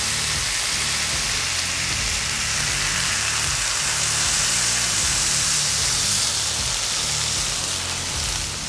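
Ground beef smash burger patties with thin-sliced onions sizzling on a hot, oiled flat-top griddle as a burger press holds them flat: a steady hiss.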